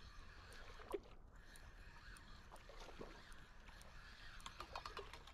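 Faint splashing and swirling of water from a hooked smallmouth bass thrashing at the surface, with one sharp click about a second in.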